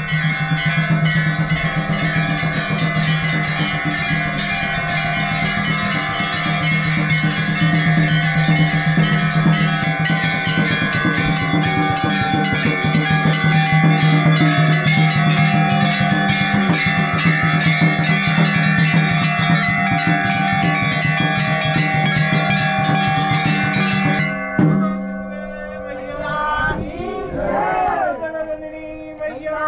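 Bells ringing and clanging continuously, building into a dense, sustained ringing. About 24 seconds in it cuts off suddenly, and women's voices take over, singing a devotional song together.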